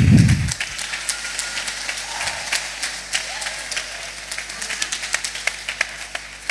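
Congregation clapping and applauding, a dense scatter of individual hand claps. A loud low rumble fades out during the first half second.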